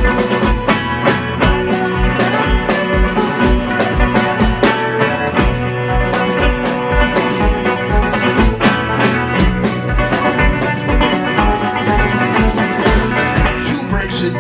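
Live band music without vocals, with a steady beat of about three beats a second.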